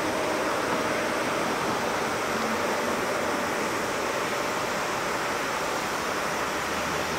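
Boeing 767 jet engines at takeoff power, heard from a distance as a steady rushing noise while the airliner rolls down the runway.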